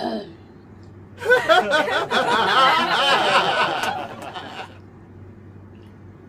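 A woman's voice for about three and a half seconds, starting about a second in, then dropping away to a faint steady low hum.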